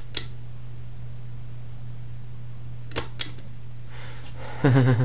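XLP motor from a 1997 Stealth ceiling fan humming low and steady as the fan runs up on its low capacitor speed, with a few sharp clicks near the start and a pair of clicks about three seconds in.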